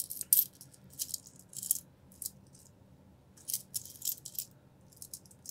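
A handful of dimes clinking and jingling against each other as they are sifted through by hand, in several short spells of quick clicks with pauses between.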